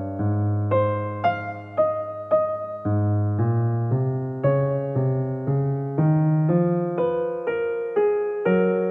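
Background piano music: a slow melody of single struck notes, about two a second, over held low notes.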